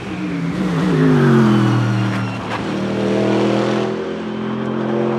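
Mercedes-AMG GT3 Evo race car's naturally aspirated V8 passing close by: the engine note peaks about a second in and falls in pitch as the car goes past. There are a couple of sharp pops about two and a half seconds in, after which the engine holds a steadier, lower note.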